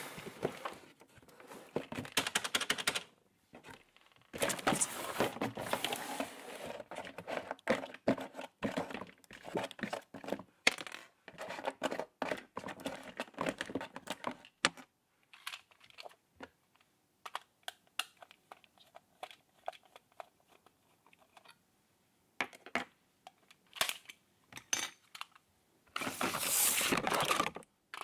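Cardboard toy box and plastic packaging handled and pulled apart by hand: stretches of rustling, crinkling and tearing, with many small clicks and taps of hard plastic parts in between.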